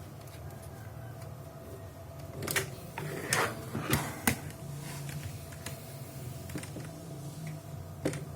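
Several sharp clicks and a rustle of handling in the middle, and one more click near the end, over a steady low hum.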